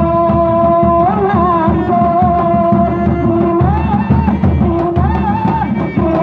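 Music: hand drums playing a busy, steady rhythm under a long, wavering, ornamented melody line that holds notes and bends between them.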